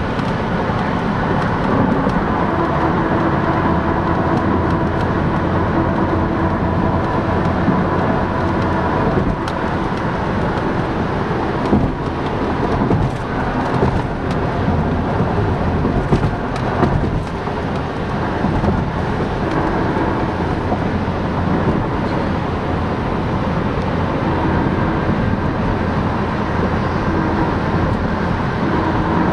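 Steady road and wind noise inside the cabin of a 2005 Toyota Prius cruising at about 65 mph on electric power alone, with no combustion in its petrol engine.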